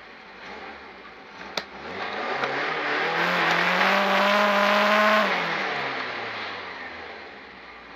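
Racing car engine revving up, held at high revs for about two seconds, then dropping back off. A sharp click comes just before it.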